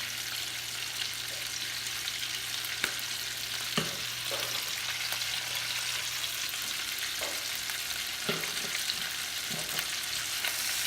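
Chicken pieces pan-searing in a Copper Chef pan, a steady sizzle with a few faint ticks scattered through it.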